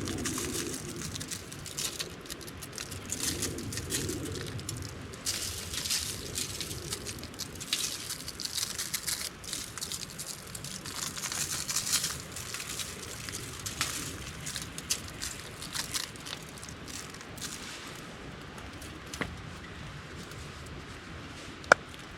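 Irregular rustling and light clicks of a lemon pepper shaker being shaken over cut vegetables. It is a little busier in the first half.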